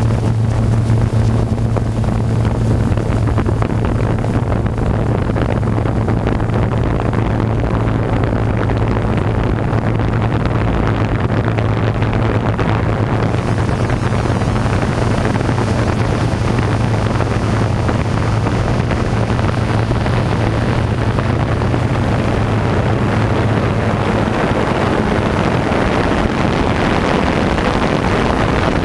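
DJI F550 hexacopter's motors and propellers running in steady flight: a steady low hum with wind rushing over the microphone. Near the end the hum weakens and the rushing noise grows.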